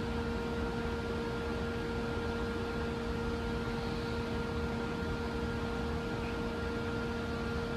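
Steady hum inside a Siemens LRV4 light-rail car standing still: its ventilation and electrical equipment run with a constant low drone and a few steady tones.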